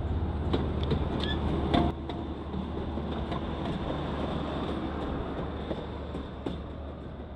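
Trolley passing with a steady low rumble that fades away as it moves off, with a sharp clack about two seconds in.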